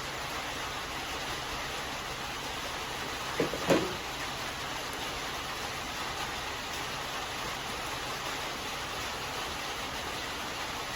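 Steady hiss of background noise, with two short knocks about a third of a second apart, about three and a half seconds in: hand tools knocking while the carburetor is being unbolted from a Briggs & Stratton lawn mower engine.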